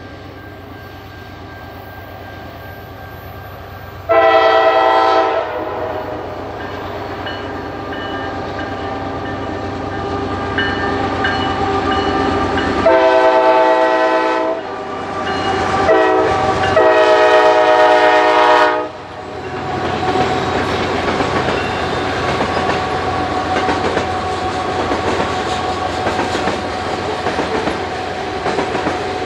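Canadian Pacific GE ES44AC diesel locomotive sounding its multi-note air horn for a grade crossing in the long, long, short, long pattern, with its engine running under the horn. The train then rolls past, loud, with the grain hopper cars' wheels clicking over the rails.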